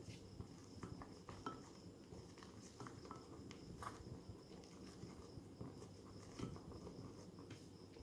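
Faint scattered small clicks and light taps of handling, over a low steady hum.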